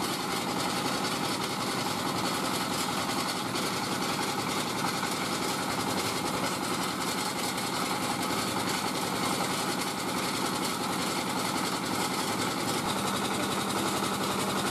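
Small single-cylinder diesel engine running steadily, driving a puffed-rice (bỏng gạo) extruder while the rice rope is pushed out of the nozzle.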